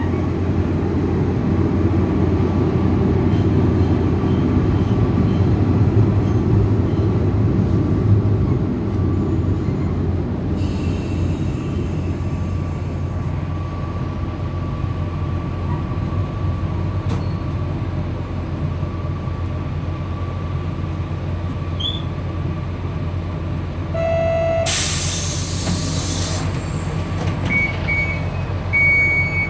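Steady low rumble of a train that eases off after the first several seconds. About 25 seconds in there is a loud hiss of released air lasting a couple of seconds, and near the end a few short high beeps.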